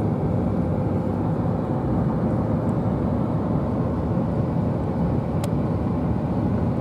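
Steady road and engine noise of a car driving, heard from inside the cabin, with one small click about five seconds in.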